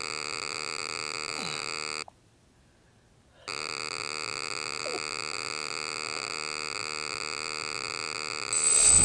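A steady electronic buzz made of several even tones, picked up by the quadcopter's onboard camera, cuts out for about a second and a half around two seconds in, then returns. Near the end the quadcopter's motors spin up, adding a high whine and a rush of prop noise.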